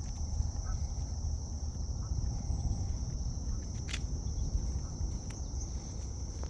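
Insects (crickets) droning in one steady high-pitched band over a low rumble, with one sharp click about four seconds in.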